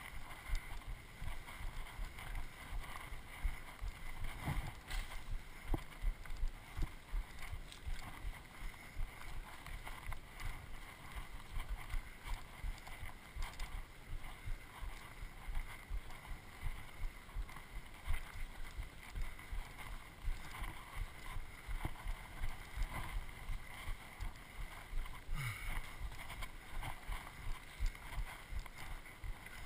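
Low rumbling wind and handling noise on a moving camera's microphone, jolted by uneven thumps from strides on a dry dirt trail.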